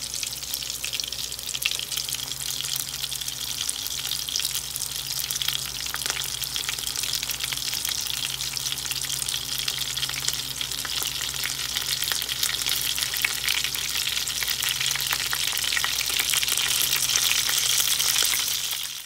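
Ground beef-and-pork hamburger patties frying in their fat in a non-stick frying pan: a steady sizzle full of fine crackles and pops.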